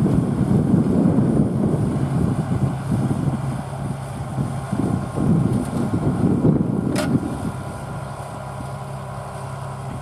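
Deutz-Fahr Agrotron 7250 TTV tractor's six-cylinder diesel running steadily under load while pulling a four-furrow mounted plough through the field. Gusty wind buffets the microphone until about three-quarters of the way through. There is a single short click about seven seconds in.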